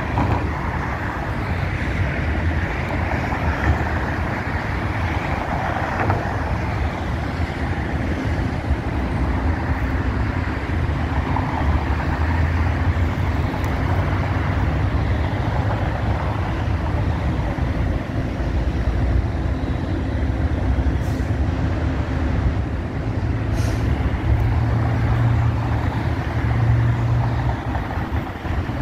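Steady traffic noise: a continuous low rumble of vehicle engines and tyres, with a steady engine hum joining about eight seconds in.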